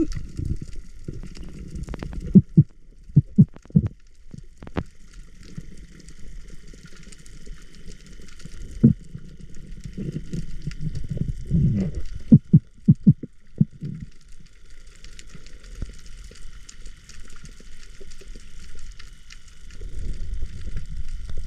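Muffled underwater sound as picked up by a camera in a waterproof housing: a low rumble with irregular dull knocks and clicks, in clusters a couple of seconds in and again around twelve to fourteen seconds, under a faint steady high whine that comes and goes.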